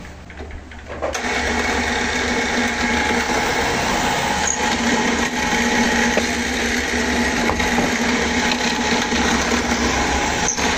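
Bench drill press starting up about a second in and running steadily at one pitch, its bit boring holes into the wooden walls of a box.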